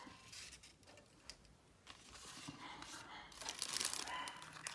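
Soft rustling and crinkling of small craft items and their packaging being handled and laid down, mostly in the second half.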